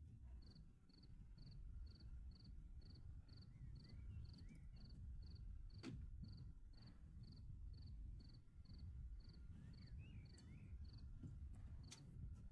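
A cricket chirping faintly and evenly, about two to three chirps a second, over a low background rumble. A sharp click sounds about six seconds in and again near the end.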